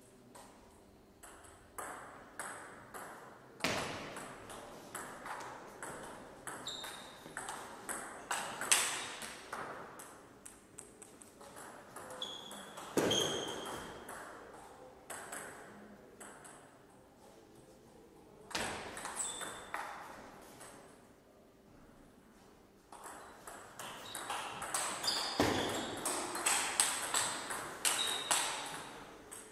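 Table tennis ball being struck back and forth in rallies, sharp clicks of the ball off the rubber-faced paddles and bouncing on the table, with short pauses between points.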